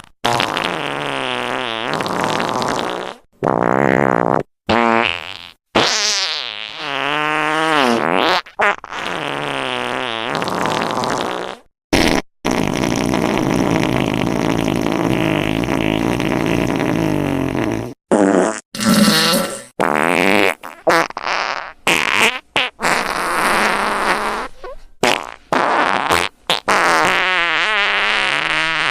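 Farting sound effect: a string of wavering, pitched fart noises, some short and some drawn out. There is one long unbroken fart of about five seconds midway, then a quick run of short ones.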